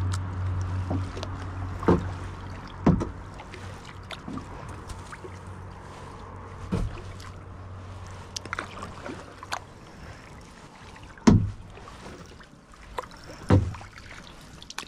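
Kayak being paddled: a metal-shafted paddle dipping in and out of calm water, with about five sharp knocks, the loudest about eleven seconds in. A low steady hum fades out over the first three seconds.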